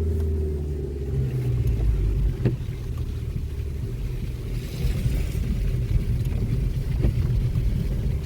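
Car engine running with a steady low rumble, with two brief knocks about two and a half and seven seconds in.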